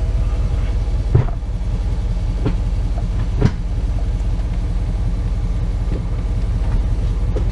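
Dodge Ram pickup's engine idling steadily, with two clunks, one about a second in and a louder one past three seconds.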